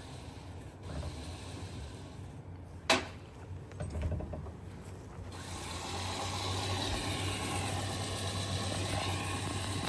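A sharp metal clank about three seconds in, then a steady mechanical whir with a low hum starting about halfway through: tow truck recovery machinery running.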